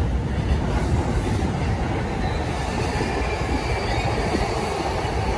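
Electric commuter train moving on the rails: a steady rumble of wheels on track, with a faint high wheel squeal that comes in about halfway through.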